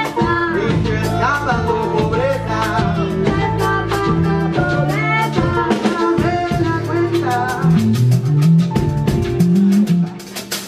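A live band playing, with women singing over drum kit, electric guitar and bass. The music drops back for a moment near the end, then picks up again.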